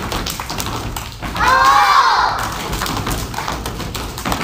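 Young step team's body percussion: a quick run of hand slaps, claps and thumps on the stage floor and on legs. About a second and a half in, one voice calls out loudly for about a second, rising then falling in pitch.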